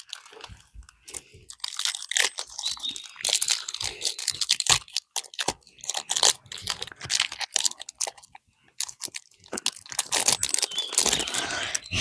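Crinkling and rustling of a Pokémon booster pack's foil wrapper and cards being handled, in irregular bursts of crackles with short pauses.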